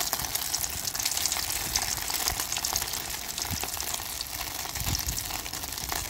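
Two flour-coated gobies deep-frying in a small aluminium saucepan of hot oil. The oil sizzles and crackles steadily around them.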